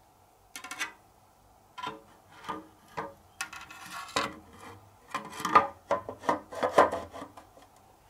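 Two black plastic propeller fans from Daikin air conditioner outdoor units rubbing, scraping and knocking against each other as they are handled and fitted together. The sound is an irregular run of rubs and clicks, loudest about five to seven seconds in.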